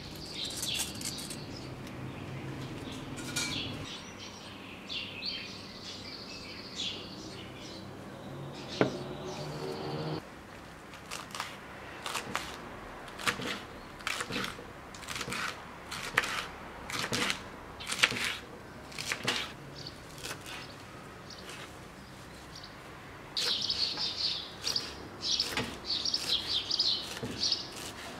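Knife chopping lettuce and parsley on a wooden cutting board, sharp cuts about one to two a second through the middle. Birds chirp at the start and again near the end.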